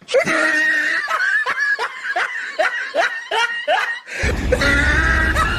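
Laughter: a run of short, quick laughing pulses, about three a second. The low engine-like rumble drops out under it and comes back near the end.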